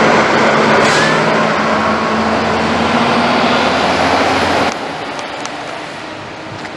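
A motor vehicle's engine running, with a dense rushing noise and a steady low hum. It cuts off abruptly about two-thirds of the way through, leaving a softer rushing hiss.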